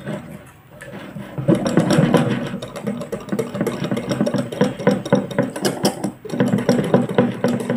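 Wire whisk beating thick gram-flour batter in a glass bowl: rapid, rhythmic clicking of the wires against the glass. It starts about a second and a half in and breaks off briefly about six seconds in.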